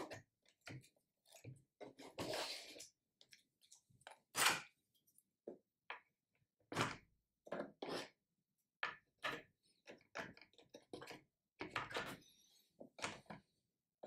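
Faint, irregular scraping and clicking as a thin piece of paper is worked along the plastic main-brush housing of a Xiaomi robot vacuum to dig out packed dust, with one sharper click about four and a half seconds in.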